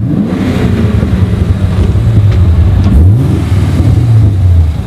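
Chevrolet Camaro SS convertible's 6.2-litre V8 running at low revs as the car rolls forward, with a brief rise in revs about three seconds in before settling back.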